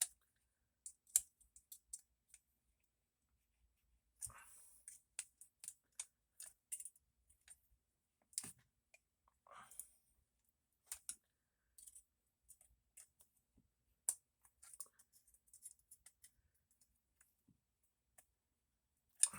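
Sparse, irregular small clicks and taps of metal pocketknife parts being handled, as a handle grip is worked off the knife.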